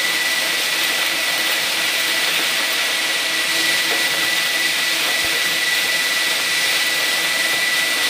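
KCL industrial vacuum cleaner running steadily, its hose sucking up compost: a constant rushing hiss with a steady high whine.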